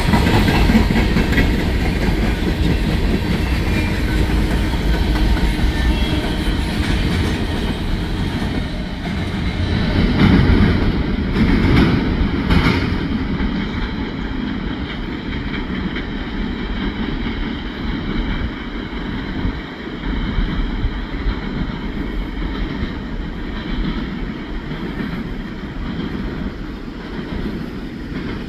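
Freight train of coal hopper cars rolling past, wheels rumbling and clattering on the rails. The clatter is loudest about ten to thirteen seconds in, then the sound gradually fades as the end of the train draws away.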